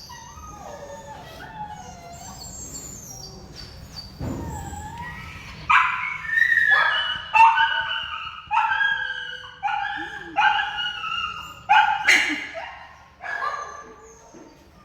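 Shelter dogs whining softly at first, then, about six seconds in, breaking into a run of about a dozen loud, high-pitched barks, one to two a second, which stop shortly before the end.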